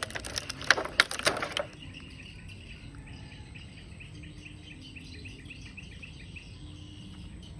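A burst of crackling clicks for about the first second and a half, then faint chirping in the background, repeating several times a second.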